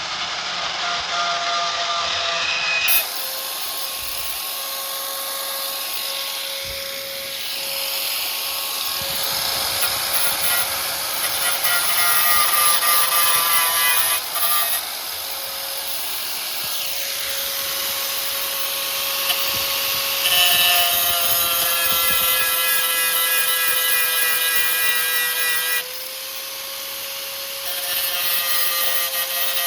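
Grinder running continuously with a steady high whine and hiss, grinding down a fresh flux-core weld bead on thin sheet metal. Its tone shifts several times as the wheel bites, sagging slightly once near the end.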